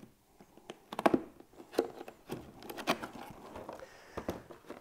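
Cardboard box being handled and opened, the lid flap lifted out. There are several sharp taps and clicks with rustling and crinkling of cardboard and packaging in between.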